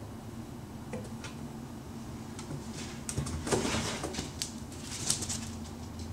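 Cats scrambling in and out of a wooden vanity drawer: scattered knocks and scuffles, a couple of light clicks about a second in, then a busy run of bumps and scrabbling between about three and five seconds in.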